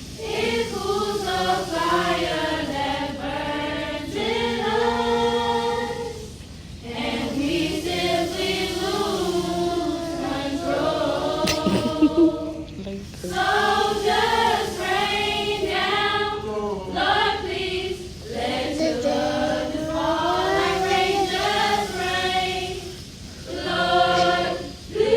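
A choir of children's voices singing a song in sustained phrases a few seconds long, with short breaths between them. A brief sharp knock sounds about halfway through.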